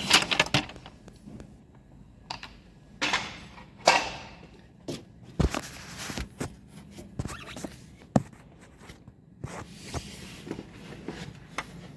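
A car's lower plastic engine cover being worked free and pulled out: scattered knocks, clicks and scrapes of stiff plastic, the sharpest about half a second in and at around four and eight seconds.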